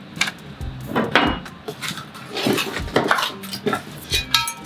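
Steel Husky jack stand parts clanking and clinking against each other as they are pulled out of their cardboard box, a series of sharp knocks with a brief metallic ring about four seconds in.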